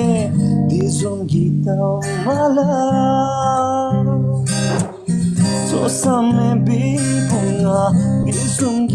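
Acoustic guitar strummed in steady chords, with a voice singing a wavering melody over it.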